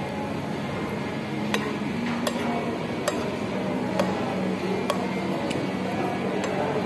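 Wooden chopsticks tapping and clinking against a ceramic noodle bowl, a short sharp click about once a second, over a steady background murmur.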